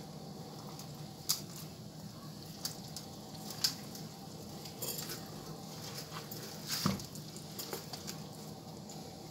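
Hands stuffing onion between the skin and meat of a raw turkey: faint wet squishing and a few short clicks over a steady low hum.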